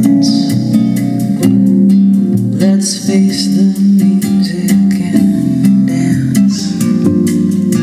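Recorded music played through an Aiyima T9 tube amplifier: a guitar-led instrumental passage with held low notes over a steady ticking beat, with no singing.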